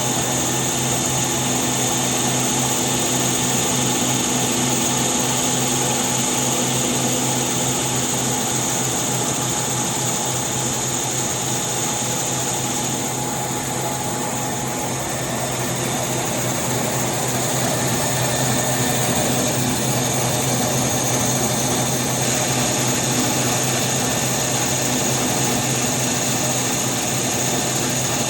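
Concrete milling machine running steadily under load, with a constant hum and a high hiss that ease off slightly for a few seconds midway.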